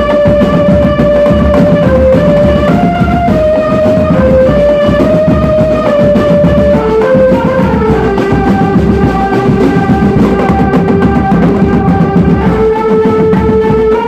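Marching drum band playing: dense, steady drumming under a melody of long held notes that step between pitches.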